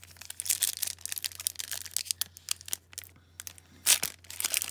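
Foil wrapper of a 2009-10 Upper Deck Victory hockey card pack being torn open and crinkled by hand, in a series of crackling rips. The loudest rip comes near the end, after a brief pause.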